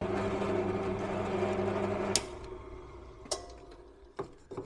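Bench pillar drill's electric motor switched on with a steady hum, running for about two seconds. It is switched off with a click and winds down, followed by a few light clicks and knocks.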